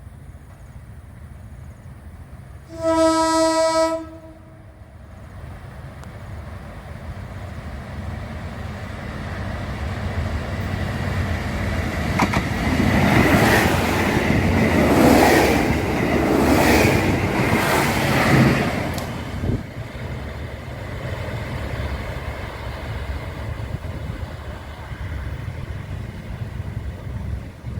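A diesel train horn sounds once, a single steady note about a second long. Then the train's running rumble and wheel clatter build up, peak for several seconds with a rhythmic clacking, and ease back to a steady rumble.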